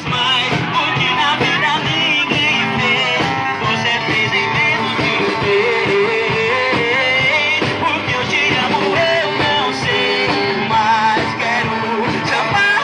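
A live band playing amplified music with a steady beat and a wavering melody line.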